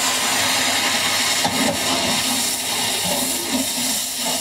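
Wet green masala paste sizzling in a large pot of hot oil, a steady hiss.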